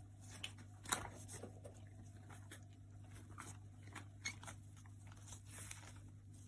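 Rat chewing: scattered faint crunches and clicks over a steady low hum, the sharpest click about a second in and another a little after four seconds.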